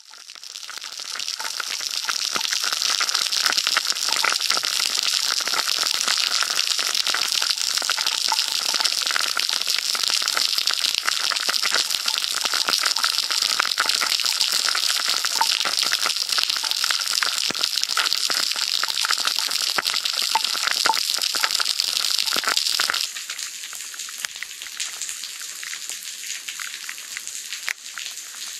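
Storm water gushing and spraying up out of an overflowing manhole: a dense, steady hiss that fades in over the first couple of seconds. About 23 seconds in it cuts to quieter rain falling on a puddle, with scattered drop ticks.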